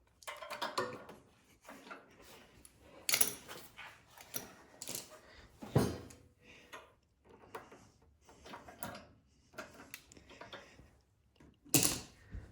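Hands working on a snowblower carburetor: irregular clicks, clinks and rattles of small metal parts and tools, with a few sharper knocks a little after three seconds, near six seconds and near the end.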